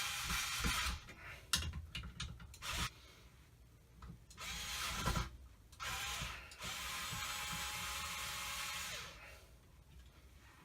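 Cordless drill/driver running in short bursts, driving screws. Between the runs come a few sharp clicks.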